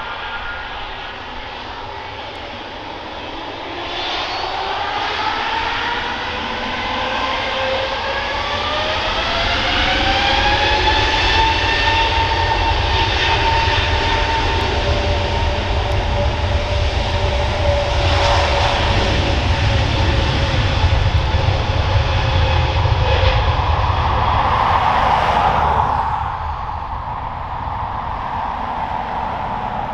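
Airbus A320neo's Pratt & Whitney PW1100G geared turbofan engines spooling up to takeoff thrust. A whine climbs in pitch over several seconds, then holds steady over a deep rumble, and the sound drops off sharply near the end.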